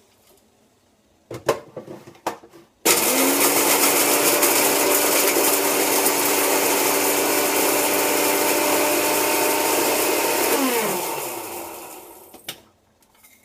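Electric spice grinder's motor running as it grinds pieces of dried kelp into powder: it starts abruptly about three seconds in, runs loud and steady with a whine for about eight seconds, then spins down with a falling pitch. A few clicks of the grinder being handled come before it, and one after.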